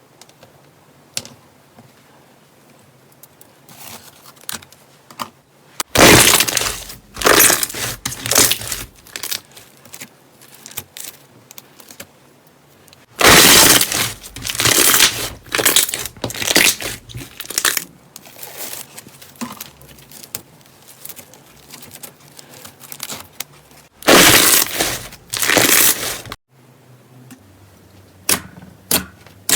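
Slime being squeezed and pressed by hand, crunching and crackling in three loud bursts, with scattered small clicks and pops between them.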